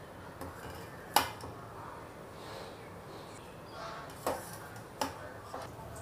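A metal ladle clinking against a stainless steel pot as boiled soya chunks are scooped out: a few sharp clinks, the clearest about a second in and two more near the end.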